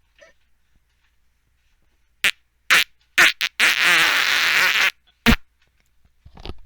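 A person farting: four short farts in quick succession about two seconds in, then one long fart with a wavering pitch lasting over a second, then another short one, and a faint one near the end.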